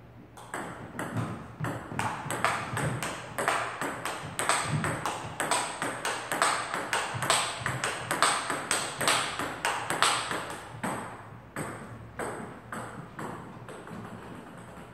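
Table tennis ball clicking off the paddles and the table in a fast back-and-forth rally, several hits a second. The rally stops about eleven seconds in, followed by a few fainter clicks.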